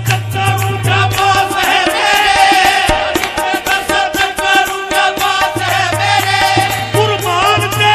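Qawwali music: voices singing a wavering, ornamented melody over sustained tones and a quick, steady percussion beat.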